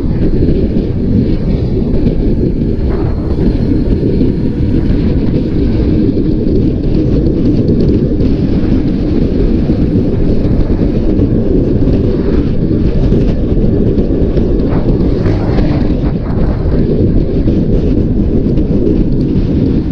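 Wind buffeting the microphone of a chest-mounted action camera on a gravel bike coasting fast downhill on a paved road: a loud, steady low rumble.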